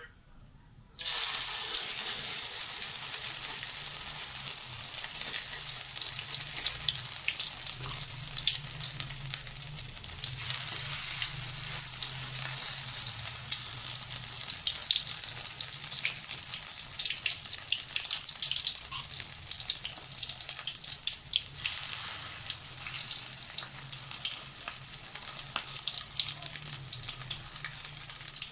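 Shrimp fritter batter frying in hot oil in a wok: a steady sizzle full of fine crackles, starting abruptly about a second in.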